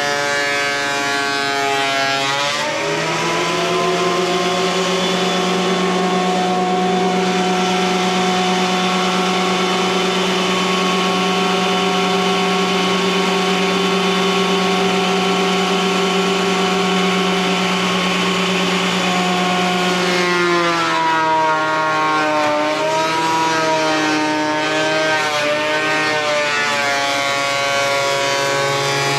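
Craftsman thickness planer running with a high, pitched whine as it surfaces a rough chainsaw-milled plank. About two and a half seconds in, the pitch drops as the board feeds into the cutterhead and loads the motor, and it runs steadily under load. Around twenty seconds in, the pitch climbs back and wavers as the cut ends.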